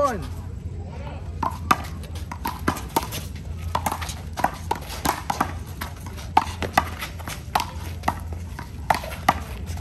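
A handball rally: the rubber ball is slapped by hands and smacks off the wall and ground in quick, irregular hits, several a second, over a steady low rumble.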